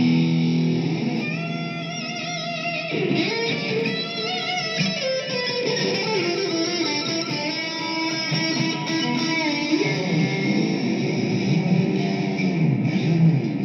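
Fender Stratocaster electric guitar played in a sound demo: sustained notes and melodic lines with vibrato, string bends and a downward slide.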